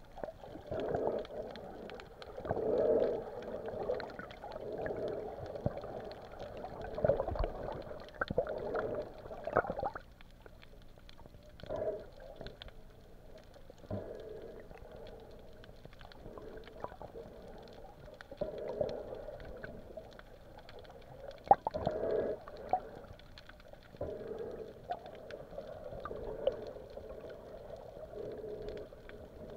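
Muffled underwater water noise picked up by a camera held just below the sea surface: uneven swells of swishing and gurgling every second or two, with scattered sharp clicks. It goes quieter for several seconds after about ten seconds in, then the swells return.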